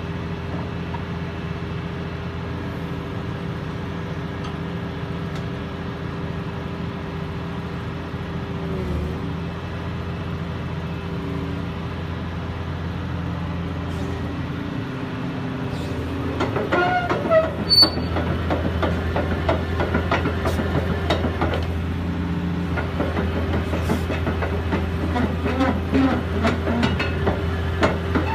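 Caterpillar 330CL excavator's C-9 diesel engine running steadily. A bit past halfway the engine gets louder and the steel tracks start clanking and knocking as the machine travels.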